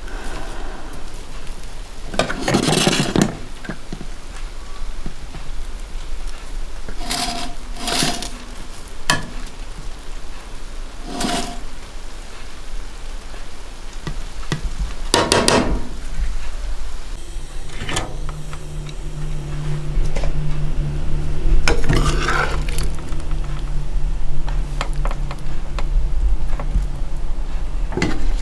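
Perforated steel skimmer scooping rice and scraping and knocking against a steel pot and serving tray, a scrape or clink every few seconds. A steady low hum comes in about two-thirds of the way through.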